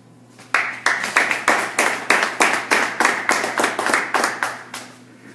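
Audience applauding after a speech, with close, evenly spaced claps about three a second standing out. The applause starts about half a second in and dies away near the end.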